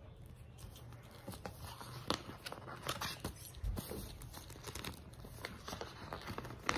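Packaging rustling and crinkling in irregular handling noises with small clicks, as a small toy is handled and put into its bag.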